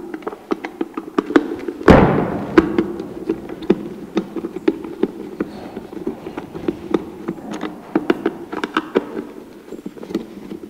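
A screwdriver turning the screws out of an electric kettle's plastic base, with a run of small irregular clicks and scrapes. One loud knock comes about two seconds in.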